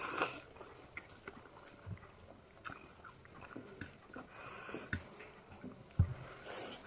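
Quiet mouth sounds of someone eating spicy ramen: soft chewing with small wet clicks, and two short breathy intakes about four and a half and six and a half seconds in.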